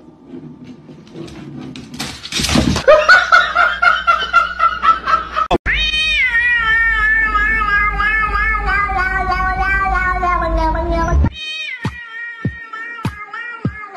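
A cat meowing in one long, wavering yowl of about five seconds, starting about six seconds in. Background music runs under it, with plucked notes near the end.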